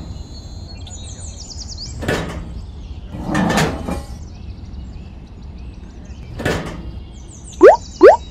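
Edited-in sound effects: three quick rising pops near the end, the loudest sounds, with a few short whooshes earlier. Faint high chirps sit over a low background hiss.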